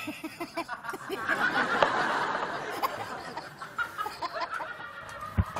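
Audience laughter, swelling about a second in and dying away over the next few seconds.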